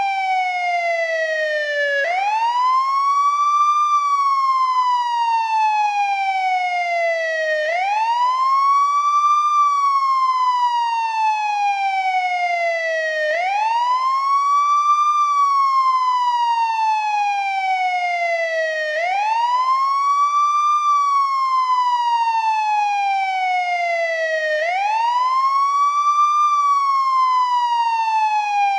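Old-style American ambulance siren sounding its wail tone: a continuous rise and fall in pitch, each cycle climbing over about two seconds and sliding back down over nearly four, repeating steadily.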